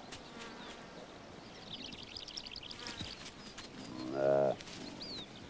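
A saiga antelope bleats once, a short call about four seconds in, over the high twittering of small birds.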